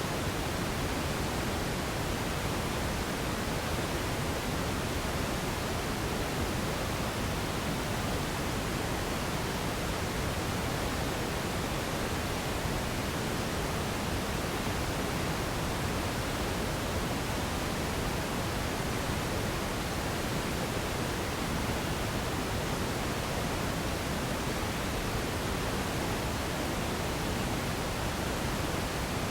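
Radio static: a steady, even hiss with no tones, crackles or changes.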